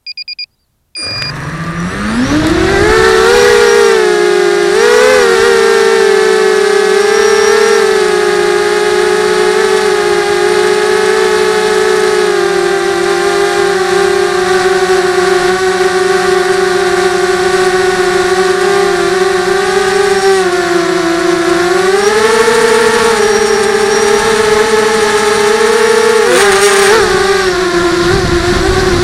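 Two short beeps, then the brushless motors and propellers of an FPV multicopter spin up from rest and settle into a loud, steady whine, heard from the craft's own camera. The pitch rises and dips briefly a few times with throttle changes, most clearly a few seconds in and again late in the flight.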